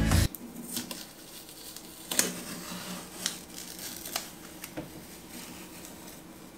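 Contact paper being handled and worked on a countertop: faint rustling with a handful of sharp crinkles and clicks spread through.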